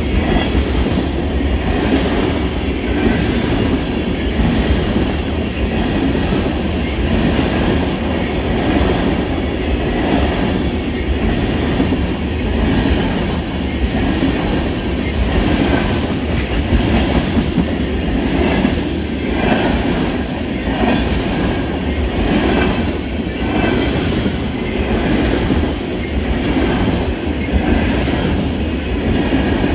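Empty ethanol tank cars of a freight train rolling past close by: a steady rumble with a rhythmic clatter of wheels over the rail joints.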